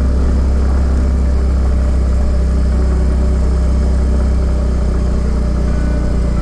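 Yamaha Fazzio scooter's 125 cc single-cylinder engine running steadily at low speed while riding, a constant low rumble.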